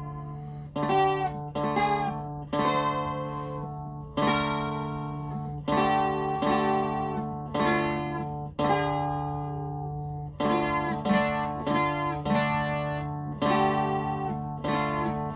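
Fretted box dulcimer with a short 15-inch scale and a doubled melody string, tuned DAAA and played through an amplifier: a slow melody strummed note by note, each strum ringing and fading, over a steady low drone.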